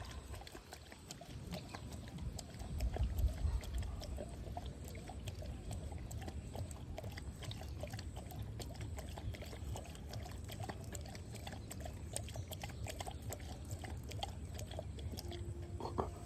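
Dog lapping water from a bowl: a quick, steady run of small wet laps and slurps after heavy panting.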